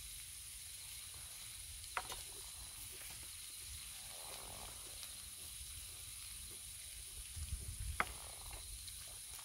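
Steady high-pitched hiss with two sharp clicks of chopsticks knocking on metal cookware, about two seconds in and near the end.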